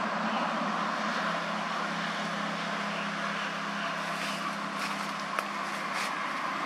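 Steady low hum of a distant engine over an even outdoor hiss; the hum fades out about two-thirds of the way through, and there is one faint click near the end.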